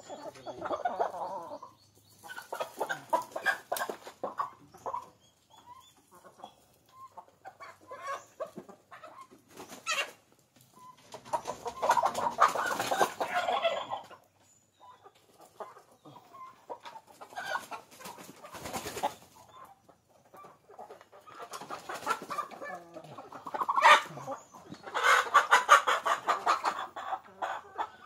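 A flock of hybrid Rhode Island Red–type chickens clucking, with several loud bursts of calling a few seconds long, the loudest about halfway through and again near the end, and quieter calls in between.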